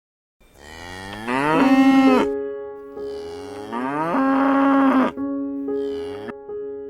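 Two long animal calls, each rising in pitch and lasting about two seconds, then a shorter call near the end, over steady held tones.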